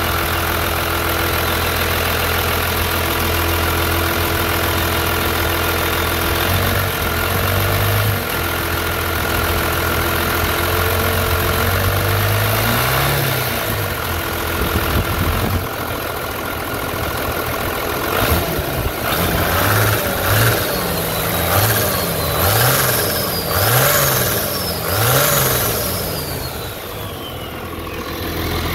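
Cummins inline-six diesel in a Ford truck idling steadily. After about six seconds it is slowly revved up and let back down, then blipped about five times in quick succession. A high whistle falls away after each of the later blips.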